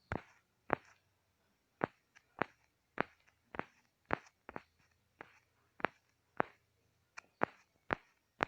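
Fingertip taps and flicks on a smartphone touchscreen: sharp clicks coming irregularly, about two a second, over a faint low hum.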